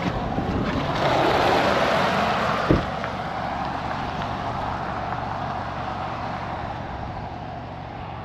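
A vehicle passing on the road: a rush of engine and tyre noise that swells about a second in, then slowly fades away. A single sharp knock sounds near the loudest point.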